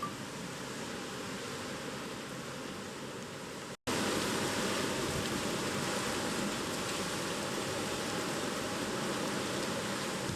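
Steady rushing storm noise of Typhoon Nanmadol's wind and rain. It cuts out for an instant about four seconds in and comes back a little louder.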